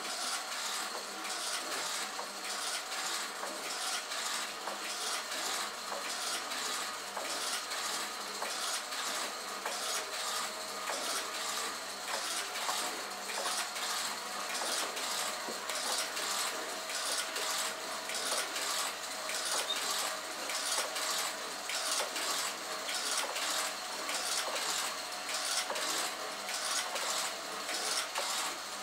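Kinetic sculpture machine running: a steady mechanical whirring and clattering from its spinning propeller and gear works, with a rapid stream of clicks. A low hum joins about five seconds in.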